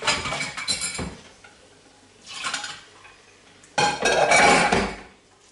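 Metal saucepan clattering and clinking against a stainless-steel kitchen sink while pasta is drained. The sound comes in three bursts, and the last, about four seconds in, is the loudest and longest.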